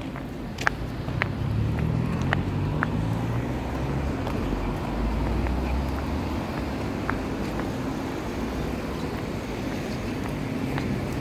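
Street traffic: a steady low rumble of passing vehicles, with a few short clicks over it.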